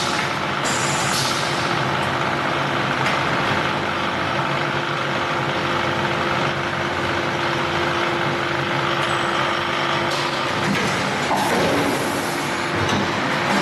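Rotor aluminium die-casting machine running with a steady mechanical hum and a held tone, with a few short pneumatic air hisses and clicks as its cylinders cycle.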